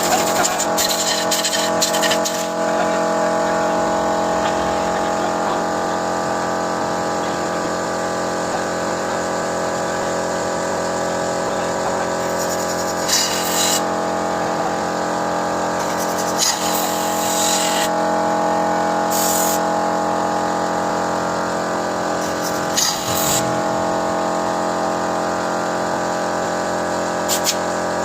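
Car engine running steadily during a carbon-cleaning engine flush, with several short bursts of hiss.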